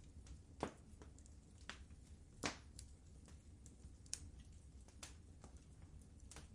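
Fireplace fire crackling: sharp pops and snaps at irregular intervals, two louder pops about half a second in and about two and a half seconds in, over a faint low rumble.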